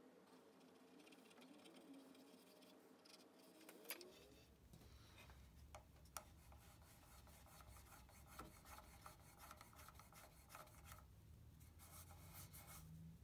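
Faint rubbing and scraping of hands and a thin wire against a wooden mallet head, with a few light clicks.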